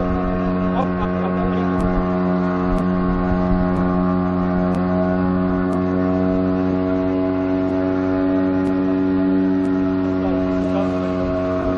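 Boat engine of an inflatable boat running under way at a steady speed: an even, unchanging drone.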